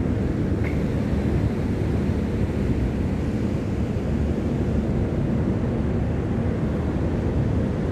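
Wind buffeting the microphone on the open deck of a ship at sea: a steady low rumble with no break.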